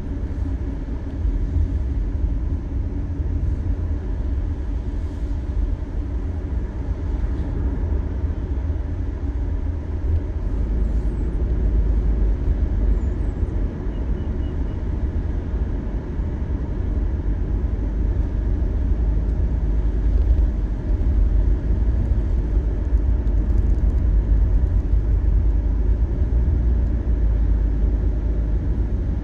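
Steady low rumble of a car's road and engine noise heard from inside the cabin at highway speed, getting slightly louder about a third of the way in.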